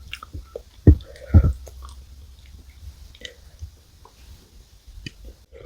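Close-miked chewing and biting of Chic Choc chocolate cookies soaked in milk, with two loud bites about a second in and softer, scattered chewing after.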